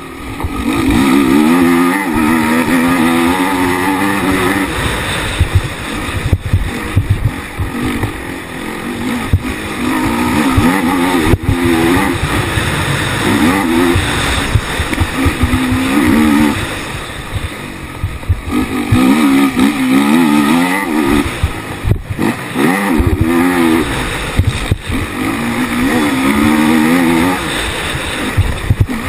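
Honda racing quad's engine heard from on board, revving up and falling back again and again as the throttle is opened and shut through the turns and jumps, with rushing wind noise. A couple of sharp knocks come through, one about eleven seconds in and one about twenty-two seconds in.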